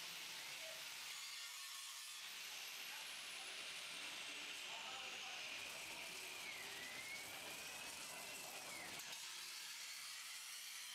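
Start-2M CNC plasma cutting machine at work: a steady hiss from the plasma torch, with a faint machine whine that dips and rises in pitch about two-thirds of the way through.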